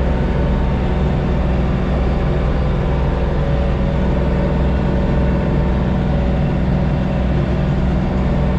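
LS MT232 compact tractor's diesel engine running steadily under load, heard from inside the closed cab, as it climbs a steep bank in low gear with the finishing mower cutting.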